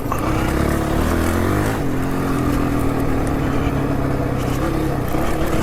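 Honda CRF450 dirt bike's single-cylinder four-stroke engine running on light throttle. Its pitch steps up a little about two seconds in, then holds fairly steady.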